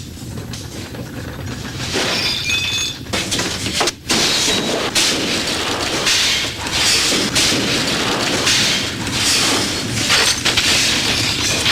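Earthquake sound effects: a steady low rumble with glass shattering and things crashing down over and over, broken by a brief drop about four seconds in.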